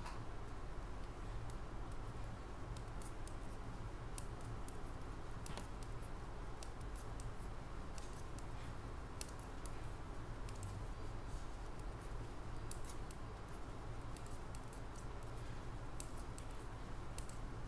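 Metal knitting needles ticking and clicking lightly and irregularly against each other as a row of stitches is purled by hand, over a steady low hum.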